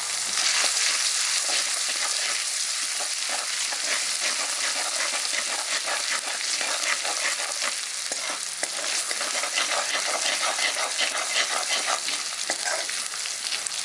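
Ginger paste frying in hot oil in a kadai: a steady sizzle with dense crackling, stirred about in the pan.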